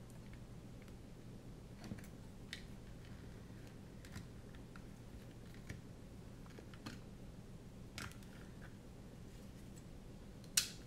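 Faint, scattered clicks and taps of a small plastic radio module and its shell being handled, pressed and poked with a small tool, with a sharper click near the end. A low steady hum sits underneath.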